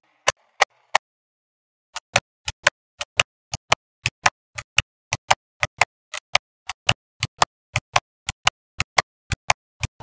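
Small neodymium magnetic balls clicking sharply against each other as clusters are snapped into place on a magnetic-ball structure: a quick run of single clicks, about three a second, with a pause of about a second near the start.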